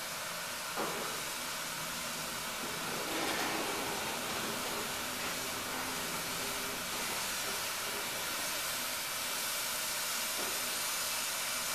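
Hot air rework station blowing a steady hiss of hot air onto a USB flash drive's circuit board to melt the solder and free a chip, set at 270 °C with the airflow on 4.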